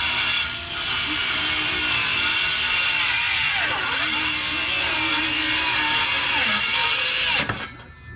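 Electric power saw running and cutting wood, its pitch dipping twice under load, then winding down and stopping about seven and a half seconds in.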